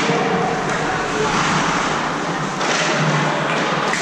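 Ice hockey game din in a rink: a steady wash of spectators' voices, with skates and sticks on the ice.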